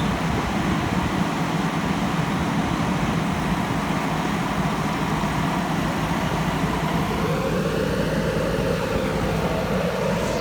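JCB backhoe loader engine running steadily, with a brief rise and fall in pitch about seven to nine seconds in.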